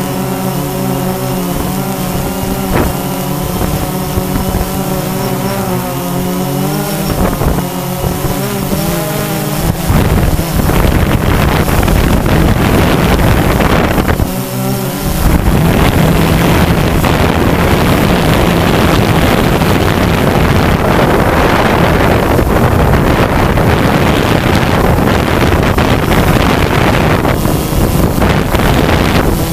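DJI Phantom 2 quadcopter's motors and propellers, heard from the drone itself: a buzzing whine whose pitch wavers as the motors adjust. About ten seconds in it gives way to a loud, wind-like rushing as the drone descends.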